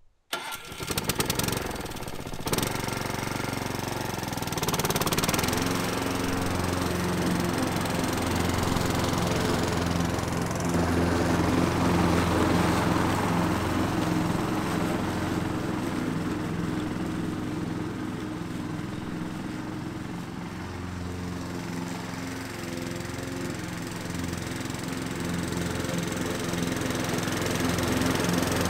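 Honda HRX 537 walk-behind lawn mower running while cutting grass, with a freshly replaced clutch bearing. It is uneven for the first couple of seconds, then runs steadily.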